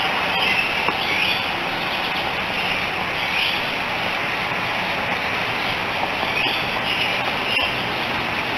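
Steady rushing background noise from an outdoor microphone, with about five short bird calls, each a quick rising or falling high note, scattered through it.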